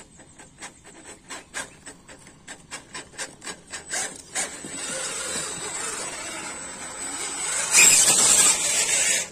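An RC scale rock crawler's electric motor and gears whine as it climbs over rocks. A run of regular clicks, about three or four a second, comes first. The whine gets steady from about four seconds in and loudest near the end as the crawler passes right by the microphone.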